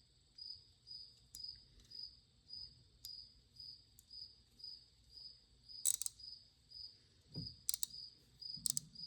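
A cricket chirping steadily, about two chirps a second. Over it, a few sharp metal clicks and a low knock from a hand ratchet being handled and worked, the loudest clicks in the second half.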